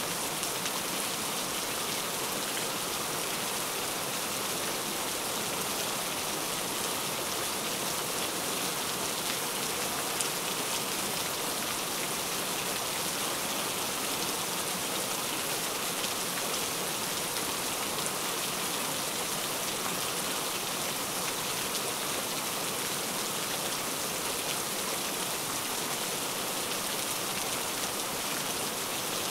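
Heavy rain falling steadily, a dense even hiss of drops on surfaces with small scattered drop taps.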